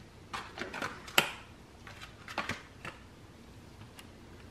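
Irregular soft taps and light rustles of parchment paper as chunks of refrigerated cookie dough are set down on a parchment-lined baking sheet.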